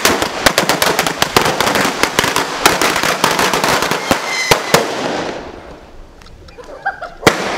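A long string of small firecrackers going off on pavement: a rapid, dense crackle of bangs for about five seconds that then thins out and stops, followed by one more sharp bang near the end.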